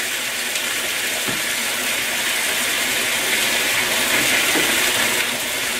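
Vegetables and sweet-and-sour sauce ingredients sizzling steadily in a hot wok, with a few faint ticks.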